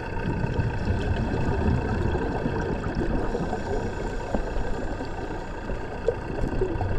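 Steady low underwater rumble recorded by a camera underwater, with a faint hum of several steady tones above it and no distinct events.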